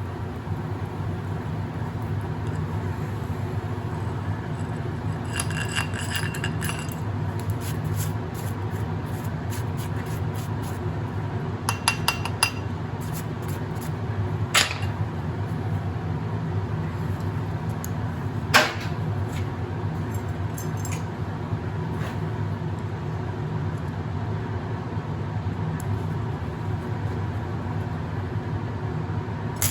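Stick (arc) welding with 1/8 inch rod: a steady hum and continuous crackle from the arc, broken by a few sharp metallic clinks in the middle.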